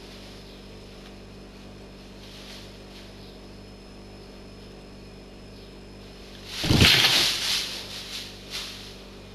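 A cat jumps onto a large cardboard box: a sudden loud thump and scraping rustle of cardboard and packing about two-thirds of the way in, then a few shorter rustles. Before it there is only a faint steady hum.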